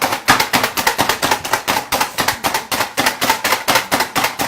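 Hand-pressed food chopper being slammed down over and over to chop vegetables: a fast, even run of sharp plastic clacks, about five a second.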